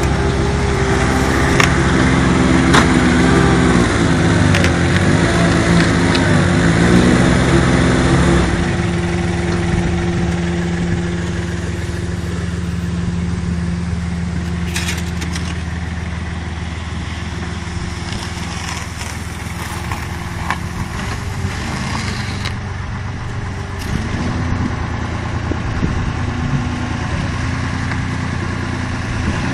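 Loader's engine running steadily and driving a hydraulic concrete mixer as it churns a damp sand-and-cement mix, with scattered clicks from the drum. About eight seconds in, the engine note drops to a lower, quieter running.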